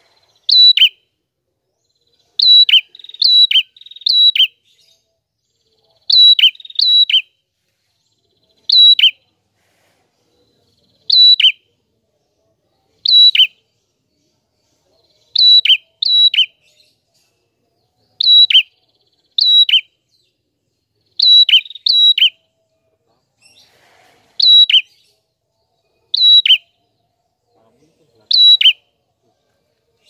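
A red-headed prenjak (a small songbird) calling: loud, sharp chirps, singly or in quick pairs every second or two, each note dropping quickly in pitch.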